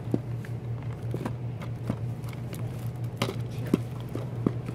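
Scattered light clicks and knocks of plastic DVD and Blu-ray cases being handled and shuffled, about six at uneven intervals, over a steady low hum.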